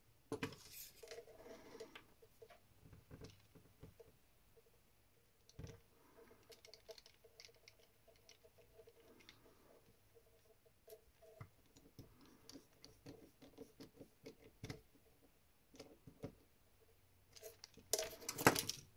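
Quiet handling noises of a precision screwdriver working on a LaserDisc laser pickup assembly: scattered light clicks and scrapes with faint squeaks, and a louder clatter of parts near the end.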